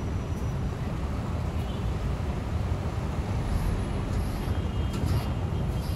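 Mercedes-Benz Transjakarta city bus's diesel engine running steadily at low speed as it crosses the level-crossing tracks, over general road traffic, with a couple of light clicks about five seconds in.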